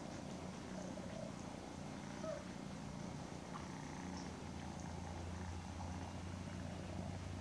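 Domestic cat purring: a steady low rumble that grows stronger about halfway through.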